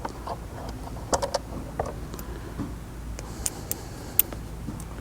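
Irregular light metallic clicks and clinks of a ratchet and loosened fender bolts being handled, a dozen or so sharp ticks spread unevenly over a low background hum.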